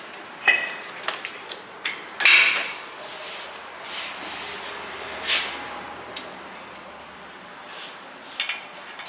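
Hand tools and metal parts clinking and knocking against the front axle, in scattered sharp clicks and a few short scrapes and rattles.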